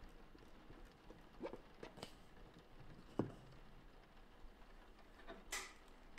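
Rubber-bladed screen-printing squeegee working thick black plastisol ink on a mesh screen: scattered soft taps and knocks, the loudest about three seconds in. About five and a half seconds in comes a brief scrape as the blade moves on the mesh.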